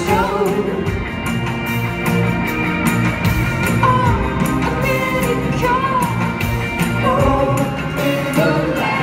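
Live rock band: a woman's voice singing lead over a steady drum beat, saxophones and guitar.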